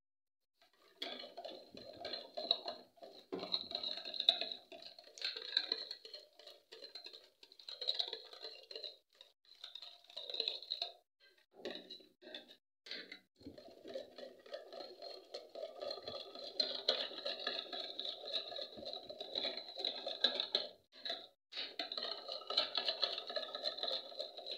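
Wire whisk beating eggs with chopped onion in a plastic bowl: a fast, wet patter that starts about a second in, with a few short pauses partway through.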